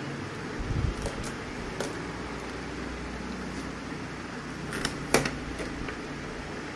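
Handling clicks and knocks from the plastic housing of an HP Neverstop 1200a laser printer as its scanner unit is lifted open: a low thump near the start, a few light clicks, and a sharp click about five seconds in. A steady low hum runs underneath.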